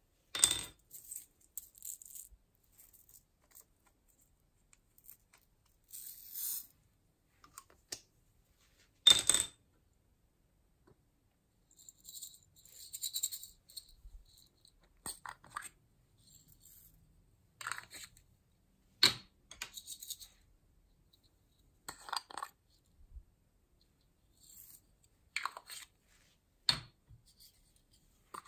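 Scattered sharp clicks and taps of small plastic sequin containers being handled, with a few brief rustling shakes as sequins are tipped into a glass dish of slime ingredients.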